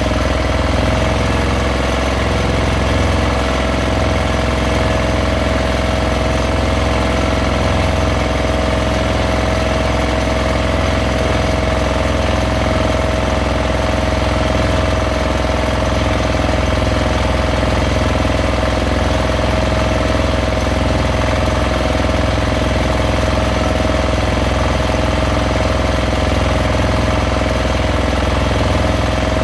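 Fishing boat's engine running steadily at an even speed, with a constant tone over its low drone.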